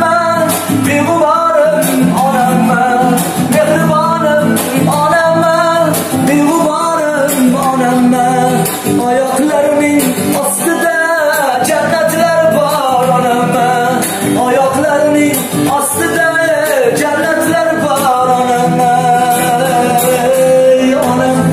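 Music: a man singing a slow song with long, wavering held notes, accompanied by acoustic guitar.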